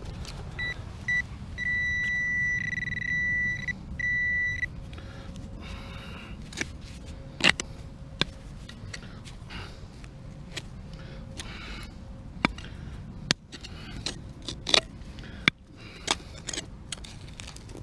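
Metal detector beeping, a steady high tone in two short bleeps, then held for about two seconds and once more briefly, signalling metal in the dig. After that come scattered sharp clicks and scrapes of digging and handling in stony soil.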